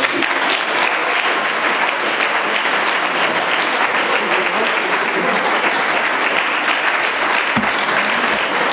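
Audience applauding, many hands clapping in a steady, unbroken wash of applause.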